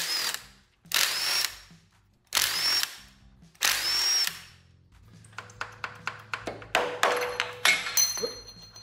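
Power drill with a socket spinning out the bolts of a Toyota 20R engine's oil pump, in four short bursts with a whine that rises and falls in each. Then a run of metallic clicks and clinks as the loosened oil pump is worked off the front of the block.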